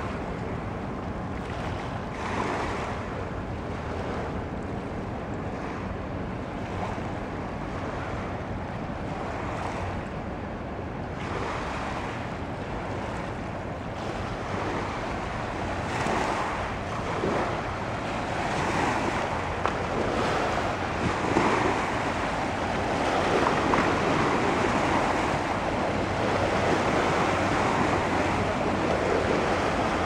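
Small sea waves breaking and washing up over a pebble beach, coming in repeated surges that grow louder in the second half.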